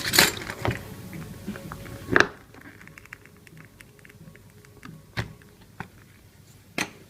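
Light clicks and taps of small tools and parts being handled, with sharper knocks at the start, about two seconds in, about five seconds in, and near the end. Background music stops about two seconds in.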